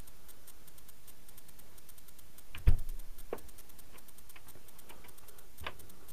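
A single heavy thump about two and a half seconds in, then two lighter knocks, over a faint, steady, rapid ticking.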